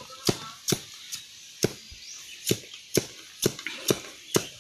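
Machete chopping into a bamboo pole: about nine sharp woody knocks at an uneven pace of roughly two a second, as the bamboo is split into strips for lashing ties.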